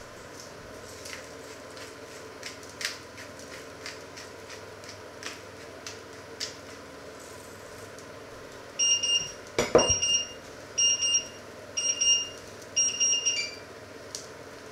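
Electronic kitchen timer beeping five times, about once a second, each beep a short, steady, high tone. One loud knock comes during the second beep, and light clicks and taps come before the beeping.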